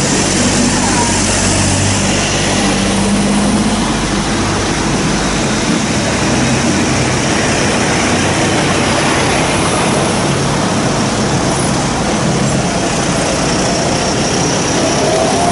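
Tractor diesel engines passing close by one after another: an older blue Ford tractor's steady engine note for the first few seconds, then large modern tractors (a Massey Ferguson and a Fendt) going by with an even hiss of tyres on the wet road.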